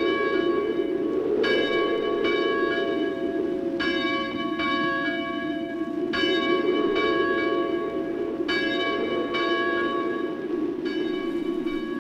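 Church bell tolling, its strokes coming in pairs about every two and a half seconds, each stroke ringing on. A steady low rushing sound runs underneath.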